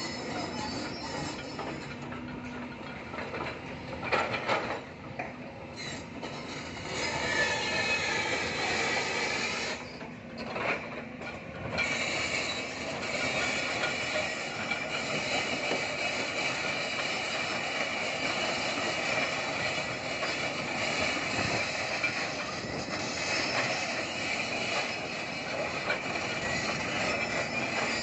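Volvo crawler excavators working: diesel engines running under a continuous metallic squealing and clanking from the machines, with a few sharp knocks about four seconds in.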